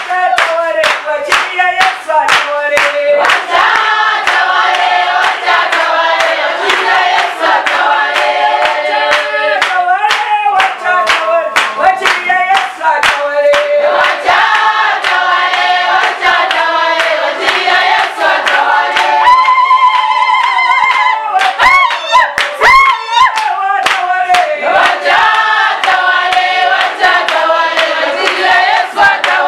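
A group of worshippers singing a Swahili praise and worship song together, with hand clapping keeping a steady beat throughout.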